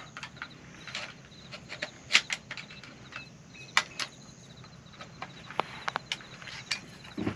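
Shotgun shells being pushed one by one into the magazine tube of a Kel-Tec KSG bullpup shotgun: irregular sharp clicks and plastic-and-metal snaps, the loudest a couple of seconds in and again about four seconds in.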